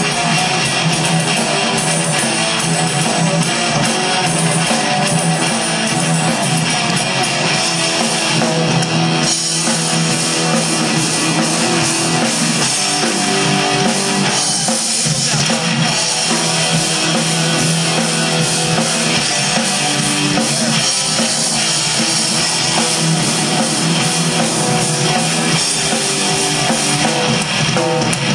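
Live rock band playing an instrumental: electric guitars, bass guitar and drum kit, with no vocals.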